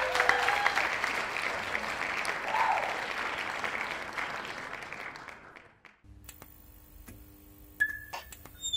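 Audience applause at the end of a song, fading away over about five seconds. After that, only a faint steady hum remains, with a couple of short blips near the end.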